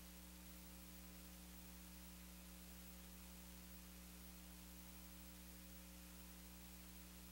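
Near silence: a faint steady electrical hum with a little hiss.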